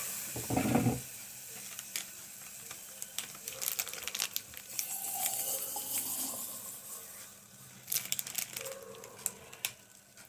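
Milk poured into a hot pan of fried dry fruits and jaggery, splashing and sizzling loudest in the first second. After that come scattered light clicks and scrapes of a spoon against the pan over a low simmering hiss.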